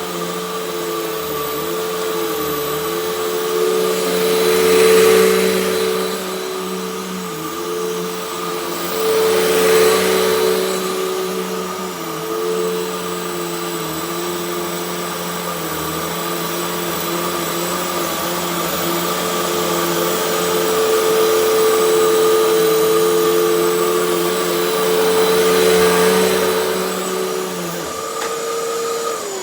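Hoover WindTunnel Max UH70600 upright vacuum cleaner running steadily with a motor whine and the rush of suction. Its loudness swells a few times. It is switched off at the very end, and its pitch falls away as the motor winds down.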